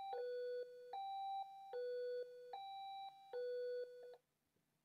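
Homemade electronic warning siren, a Bluetooth speaker with a plastic cup taped on as a horn, sounding a high-low tone: a higher and a lower steady tone alternate about every 0.8 seconds, three rounds, and stop about four seconds in. This high-low is its thunderstorm warning signal.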